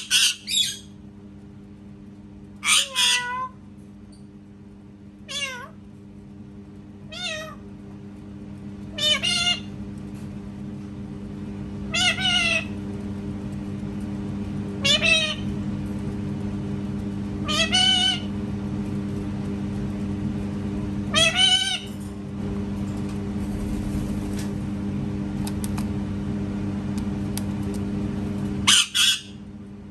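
Parrot imitating a cat's meow: about ten separate meow-like calls, each about half a second long and some doubled, repeated every two to three seconds. There is a longer gap near the end.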